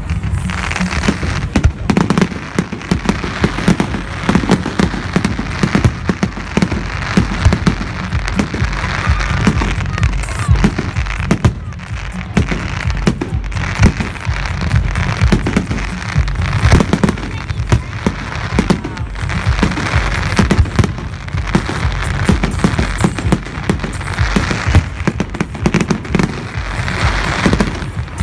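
Fireworks display going off without a break: a rapid, dense run of bangs with thick crackling from aerial shells and glitter bursts.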